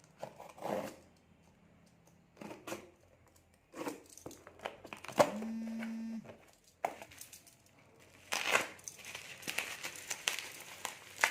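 Parcel packaging being handled and opened: plastic and paper crinkling and tearing, with scattered clicks and rustles and a denser stretch of crinkling over the last few seconds. A short steady buzz lasts about a second roughly five seconds in.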